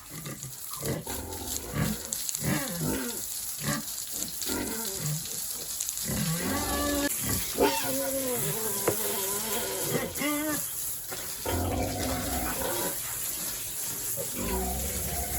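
Pigs grunting and calling: a string of short pitched calls, with longer drawn-out calls in the middle.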